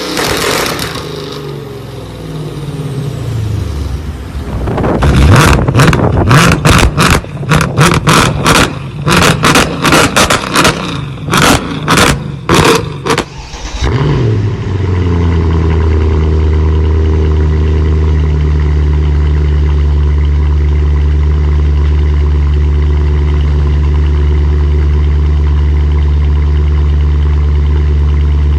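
Mercedes-Benz C63 AMG's 6.2-litre V8 on an iPE aftermarket exhaust: revs falling off, then a rapid run of loud exhaust pops and crackles (backfires) for about eight seconds, settling after a short dip into a steady idle.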